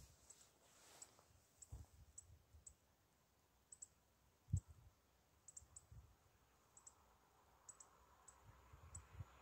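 Near silence: faint scattered clicks and a few soft low thumps, the strongest about halfway through. In the last second a faint rushing begins to rise as a distant train approaches.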